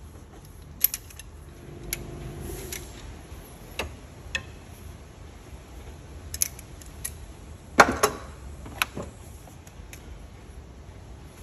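Metal clicks and clinks of a socket and breaker bar being fitted onto cylinder head bolts and swung through a 90-degree angle-tightening pass. The clinks are irregular and scattered, with the loudest clatter about eight seconds in. A steady high insect buzz runs underneath.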